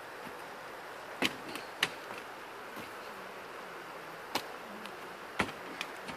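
Steady outdoor hiss broken by about five sharp, brief knocks, the last two as sneakers come down on a wooden picnic table top during a bodyweight workout.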